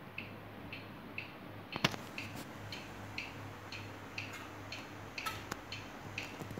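Robbins & Myers electric desk fan running: a steady low motor hum with a rapid, regular ticking several times a second. A sharp click sounds just under two seconds in, and a few more come a little past five seconds.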